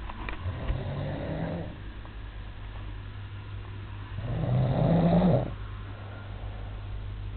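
A man snoring in his sleep: two snores about four seconds apart, the second one louder.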